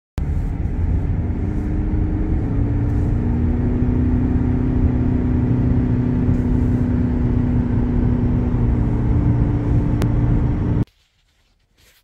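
Car driving at highway speed: steady road and engine noise with a low drone, cutting off suddenly near the end.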